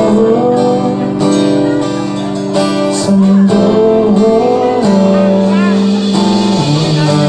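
Live band playing a pop-rock song with strummed acoustic guitar, electric guitar, bass and drums, with cymbal crashes now and then.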